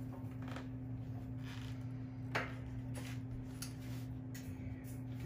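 Soft handling sounds of a pastry brush working over the floured top of a proofed sourdough loaf on parchment paper: scattered light ticks and taps, one sharper about two and a half seconds in, over a steady low hum.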